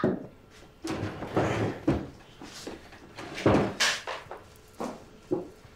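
A string of light knocks and clatters: chairs moved and bowls and dishes set down on a dining table, the loudest a few seconds in.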